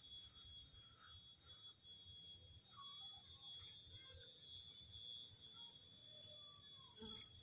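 Near silence: faint outdoor ambience with a steady high-pitched whine and a few faint, scattered chirps.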